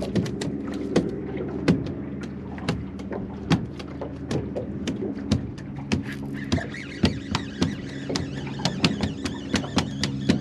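Steady low hum of a boat's motor, with water slapping against the hull in frequent sharp knocks. About six seconds in, a higher whine joins.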